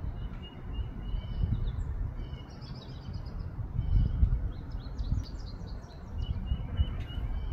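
Small birds chirping: repeated short high notes, with two quick trills about a third and two-thirds of the way through. A steady low rumble runs underneath.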